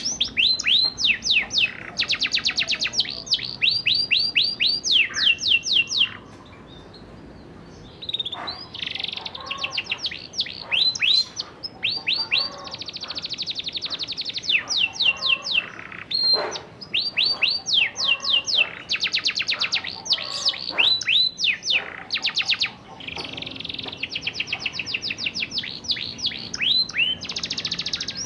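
Young domestic canary singing a rolling 'ngerol' song of fast trills and runs of repeated rising whistles, broken by a pause of about two seconds about six seconds in.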